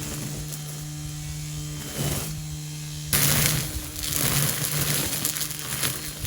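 Small electric sprayer pump humming steadily; about three seconds in, a loud spray hiss starts over it.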